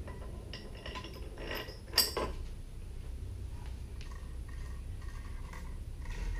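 Small metallic clinks and taps of stainless steel bolts and washers being handled and fitted through a boat jackplate bracket by hand, with one sharp metal clack about two seconds in.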